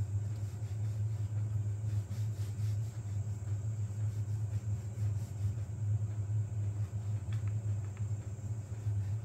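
Steady low hum of a powered-on Elegoo Neptune 4 Pro 3D printer with its cooling fans running, and a few faint clicks near the end.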